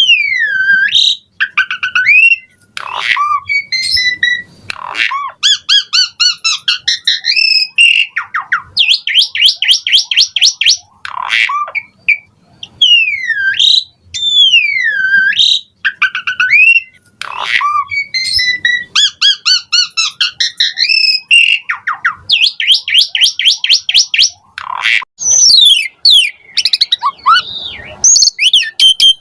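A pied starling (jalak suren) singing loudly and without pause. It delivers a varied stream of clear whistles that swoop down and up, fast rattling trills and harsh squawking notes. This is the bird in full, 'gacor' song, packed with borrowed phrases.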